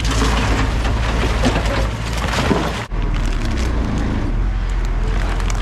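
Heavy demolition machinery running with cracking and crunching of broken concrete debris, then, after a cut about three seconds in, a diesel engine running steadily.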